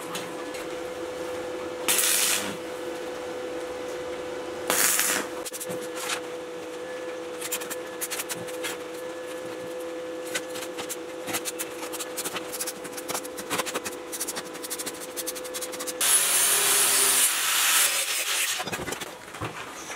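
Stick welding on sheet steel: the arc crackles steadily over a constant hum, with two short loud bursts of noise about two and five seconds in. Near the end, an angle grinder grinds the welded steel, loud and steady.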